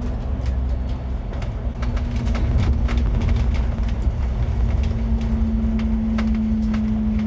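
Bus running slowly, heard from inside the upper deck: a low engine and road rumble with a steady droning hum and frequent light rattles and clicks from the body.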